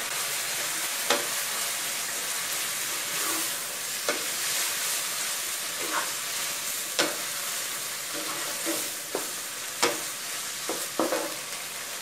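Fish balls and bamboo shoots sizzling steadily in a stone-coated wok as they are stir-fried, with a wooden spatula scraping the pan and knocking against it about ten times at irregular intervals, more often near the end.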